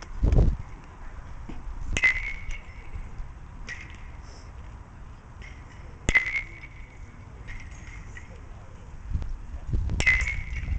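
Baseball bat hitting pitched balls in batting practice: three sharp cracks with a brief ring, about four seconds apart.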